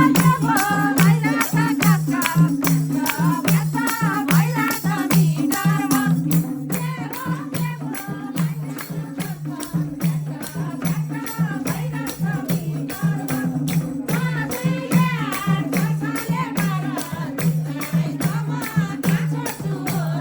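Nepali live dohori folk music: a steady, fast drum rhythm with jingling rattle-like percussion under a wavering melody line, with no sung words.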